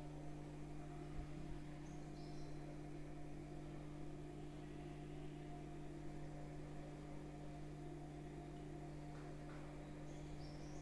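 Steady low electrical hum in a small room, with two faint, brief high chirps from birds outside, one about two seconds in and one near the end.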